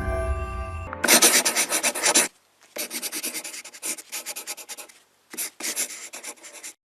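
Quick rubbing or scratching strokes, many a second, in three short runs with brief pauses between them.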